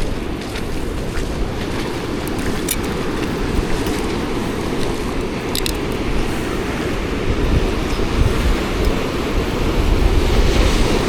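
Ocean surf washing on the beach in a steady rumble, with wind buffeting the microphone and a couple of brief clicks.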